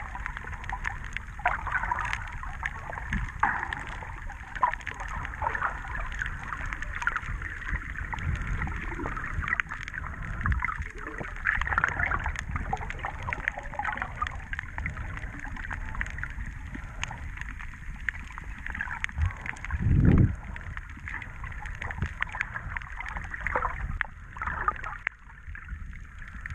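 Muffled water sloshing and gurgling around a GoPro Session camera held just under the surface, with irregular small knocks throughout and one louder low thump about twenty seconds in.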